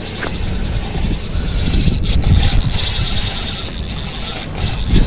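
Wind buffeting the microphone in an uneven low rumble, with a steady high-pitched insect buzz behind it.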